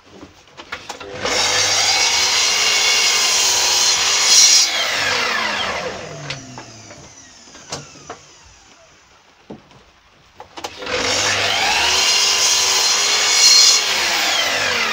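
A sliding mitre saw crosscuts 2x1 softwood twice. Each time the motor spins up, the blade goes through the timber with a loud peak, and the motor winds down with a falling whine. In the quiet between the cuts come a few knocks of timber being slid along the saw's fence.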